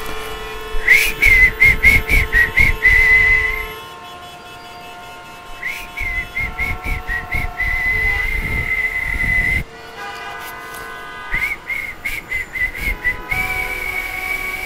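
Shrill whistling held at nearly one pitch, three times over: each time a run of quick short toots, then a long held note. Steady lower tones hum beneath.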